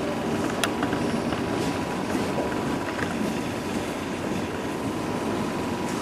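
Steady background room noise with a faint constant high tone and a few light clicks about half a second in.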